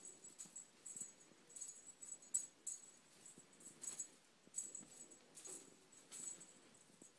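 Faint, irregular jingling of a small bell, several quick shakes a second, with soft rustling of blankets as kittens bat and pounce at a feather boa.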